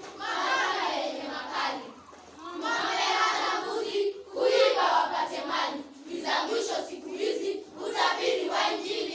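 A group of children's voices in unison, singing or chanting in short phrases separated by brief pauses.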